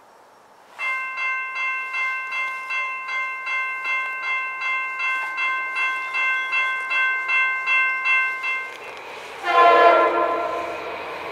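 Railroad grade-crossing bell ringing steadily at about three strikes a second for some eight seconds. About nine and a half seconds in, a Norfolk Southern diesel locomotive's air horn sounds one loud blast over the low rumble of the approaching train.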